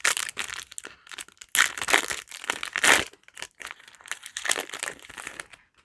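Foil trading-card booster pack wrapper crinkling as it is handled and torn open: a run of irregular rustles and crackles that stops just before the end.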